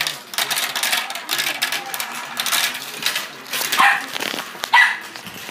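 Marbles rolling and clattering down a marble run, a dense, irregular rattle of clicks as they knock against the track. Two short high-pitched yelps stand out about four and five seconds in.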